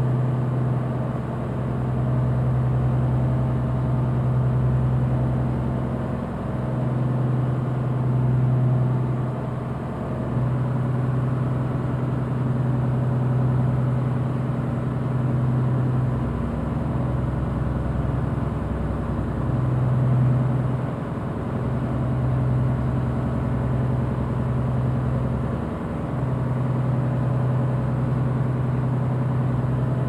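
Lifeboat engine running with a steady low drone that dips briefly every few seconds.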